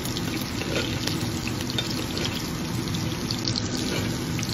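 Picanha steak sizzling in butter in a cast-iron skillet: a steady hiss dotted with small crackling pops.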